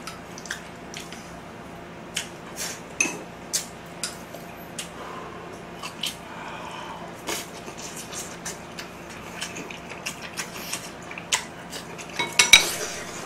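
Scattered clicks and clinks of chopsticks and utensils against dishes during a meal, sparse at first and busier near the end.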